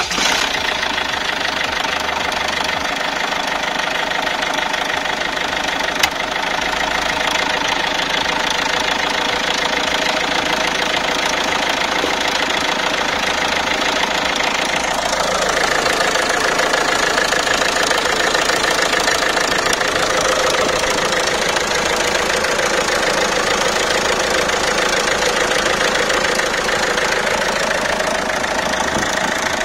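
Citroën 1.6 HDi four-cylinder turbodiesel idling with a steady diesel clatter, just after being started. It is a test run following replacement of the rocker cover and oil separator. Its note shifts slightly about halfway through.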